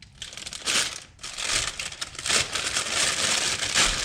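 Packaging crinkling and rustling as it is handled, in irregular surges.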